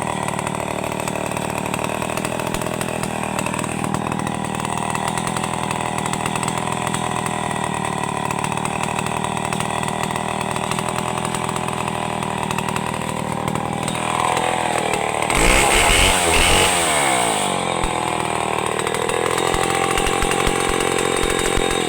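Chainsaw engine running steadily at high speed. About two-thirds through it gets louder and its pitch slides down and wavers for a few seconds, then it evens out again.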